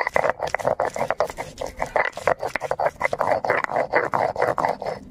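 Stone roller (nora) grinding garlic and ginger on a flat stone slab (shil): rapid, rhythmic rasping strokes of stone on stone, crushing the cloves into a paste.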